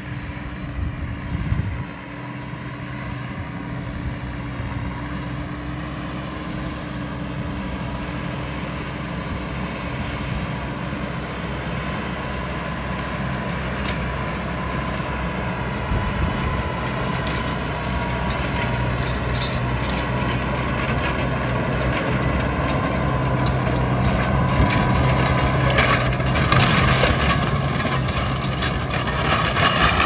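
Tractor engine running steadily under load while pulling a plough through pasture ground. It grows gradually louder and becomes noisier in the last few seconds.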